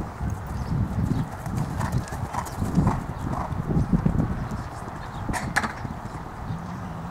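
Hoofbeats of a horse cantering on grass turf, a rhythmic run of dull thuds that grows quieter as the horse moves away towards a show jump.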